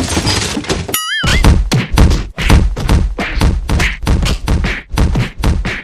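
Cartoon fight sound effects: a short wobbling whistle, then a rapid flurry of punches and thwacks, about four or five blows a second, as one character is beaten.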